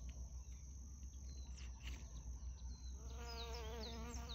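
A bee buzzing as it flies close among the flowers, starting about three seconds in, its hum wavering in pitch. Underneath runs a steady high insect drone with short, high falling chirps.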